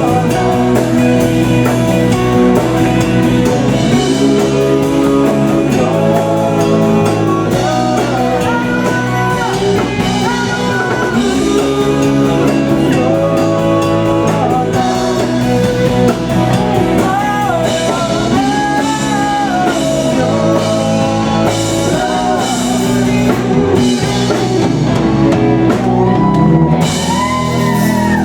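Live rock band playing, with drum kit, bass and electric guitar, and a lead melody bending up and down in pitch over a steady chord pattern.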